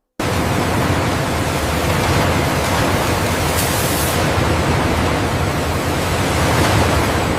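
A loud, steady rushing noise that cuts in suddenly just after the start and holds evenly, with no tone or rhythm in it.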